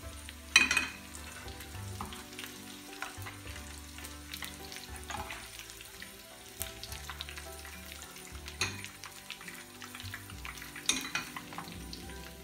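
Kingfish pieces crackling and sizzling in shallow oil in a non-stick frying pan as a perforated steel skimmer stirs and lifts them, the fish now fried. A few sharp knocks stand out, the loudest about half a second in and two more near the end.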